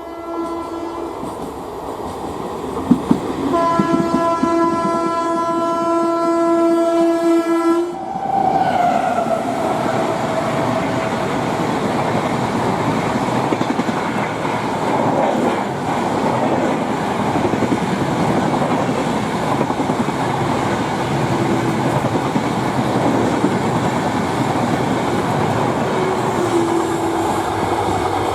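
Indian Railways express train passing close by: the locomotive horn gives a short blast, then a long steady blast of about four seconds that cuts off as the engine goes by. The coaches then rush past with a continuous rumble and rattle of wheels over the rail joints.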